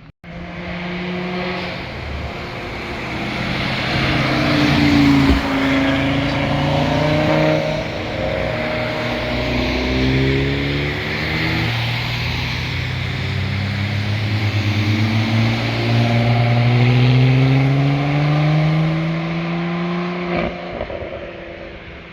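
Performance car engines accelerating and revving past, their pitch climbing and dropping again and again with throttle and gear changes, with a long rising pull in the second half.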